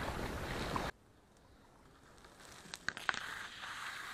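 Steady wind noise on the microphone for about the first second, then, after a sudden cut, reeds rustling and crackling with a few sharp snaps as someone pushes through them to pick up a shot duck.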